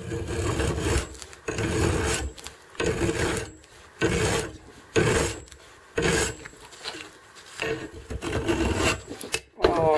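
Hand file rasping across the steel front point of a crampon clamped in a bench vice, in separate strokes about once a second. It is a finer file making light strokes to bring the point to a sharp edge.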